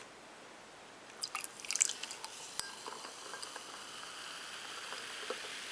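Coca-Cola poured from a 500 ml plastic bottle into a glass. A few splashes come about a second in as the pour starts, then a steady fizzing hiss builds as the carbonated cola foams up in the glass.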